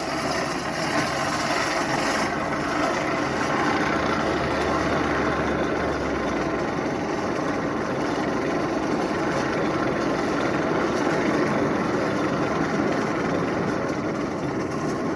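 Old hand-cranked forge blower turning steadily, forcing air through burning coals with a continuous rushing whir.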